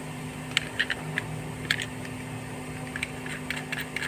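Light, irregular clicks and ticks of small electronic components and their wire leads being handled against a circuit board, a dozen or so, over a steady low hum.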